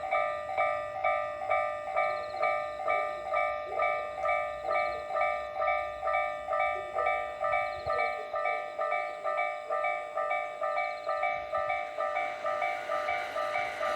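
Japanese level crossing's electronic warning bell ringing a steady, evenly repeated clang about twice a second: the crossing is closed for an approaching train. A low rumble underneath dies away about halfway through, and a train's running noise builds near the end.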